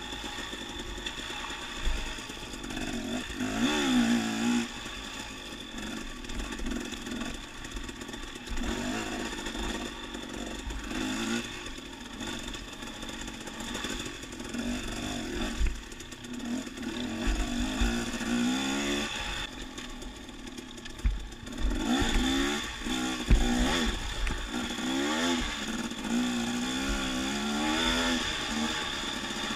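Dirt bike engine heard from the rider's own bike, its pitch rising and falling again and again as the throttle is opened and closed over rough trail, with scattered low knocks.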